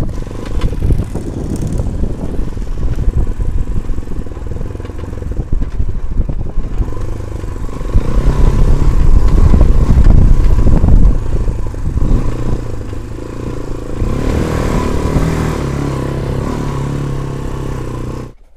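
Motorcycle engine running while riding over sand and dirt, with a louder stretch from about eight to eleven seconds in and a steadier engine note near the end.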